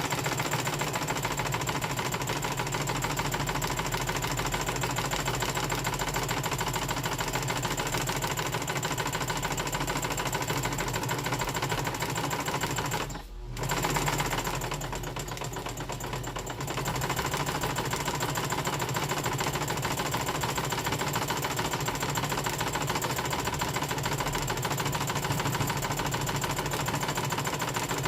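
Electric sewing machine running steadily while stitching fabric, stopping briefly about halfway through and then starting up again.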